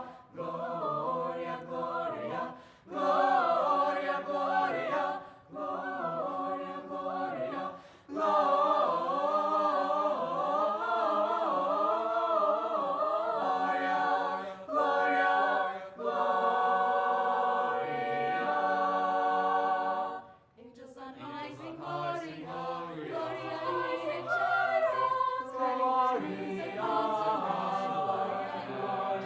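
High school chamber choir singing in several voice parts in sustained phrases, with a brief break about twenty seconds in.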